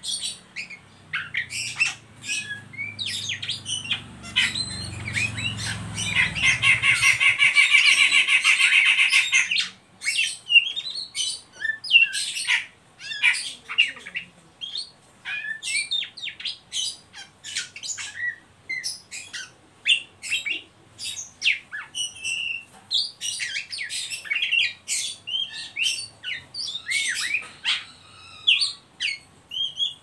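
Oriental magpie-robin (kacer) singing in a run of short, sharp calls and whistles, with a fast, rattling trill (the ngeriwik chatter) about seven seconds in that lasts some three seconds and is the loudest part. A low rumble sits underneath for the first several seconds.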